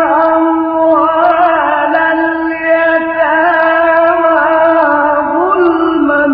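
Male Quran reciter chanting in the melodic mujawwad style: one long held note with wavering ornaments, the pitch rising and falling briefly near the end.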